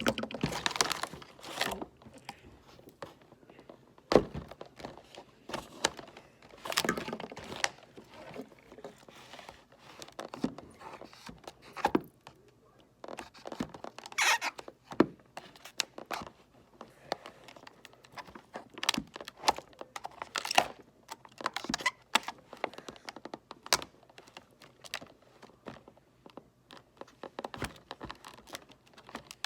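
Stiff plastic packaging being cut and pried open by hand: irregular crinkling, tearing and scraping with sharp knocks and clicks.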